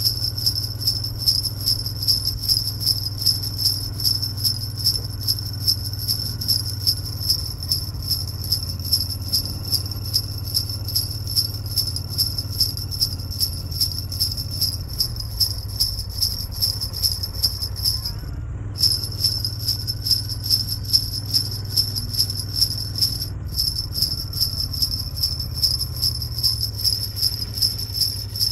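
Sleigh bells jingling in a steady rhythm, about two shakes a second, over a low steady hum. The jingling breaks off for a moment twice in the second half.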